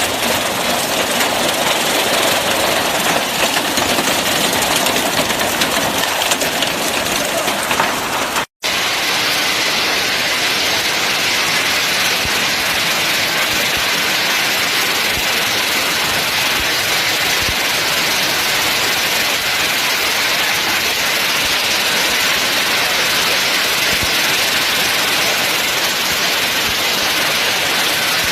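Heavy rain mixed with hail pouring down, a dense steady rush of impacts. It cuts out for a moment about eight seconds in, then goes on with a brighter hiss.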